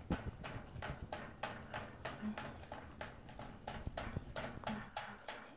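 A toy poodle drinking from a cage-mounted water bottle, lapping at its metal nozzle in an even run of wet clicks, about four a second.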